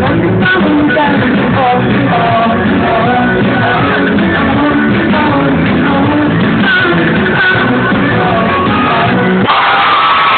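Live rock band playing amplified guitars and drums with a singer, heard from the audience. The recording sounds dull, with no treble. About a second before the end the sound changes abruptly to a denser, held wash.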